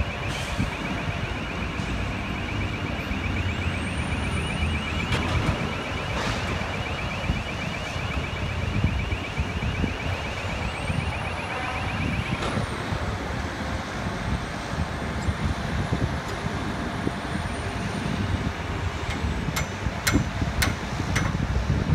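A fast-pulsing, high electronic warning beeper sounds over a steady machinery hum and cuts off suddenly about twelve seconds in. Near the end come a few sharp metallic clicks.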